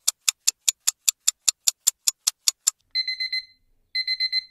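Rapid, even ticking, about five ticks a second, that stops under three seconds in and gives way to an electronic alarm beeping in quick bursts of four, twice.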